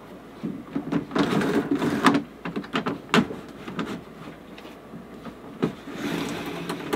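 Cordless drill run in short bursts to drive screws up into a fibreglass hatch cover, with a few sharp knocks between the runs.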